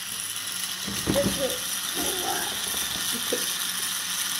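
Small battery-powered motor and plastic gearbox of a Connex H2O toy water pump kit running with a steady whirring buzz, switched on just before, with a few low thumps over it.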